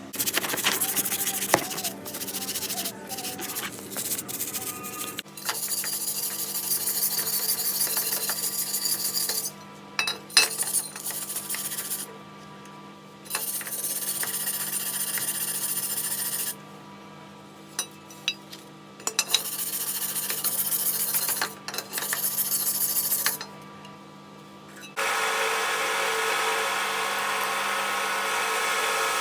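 Abrasive rubbing of a part being cleaned up, in stretches of three or four seconds with short pauses between. From about 25 seconds in it gives way to a steadier machine-like sound.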